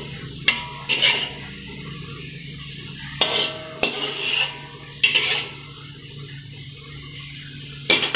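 Metal spatula scraping and clanking against a thin aluminium wok as the last of a stir-fry is scraped out, several sharp clanks a second or so apart.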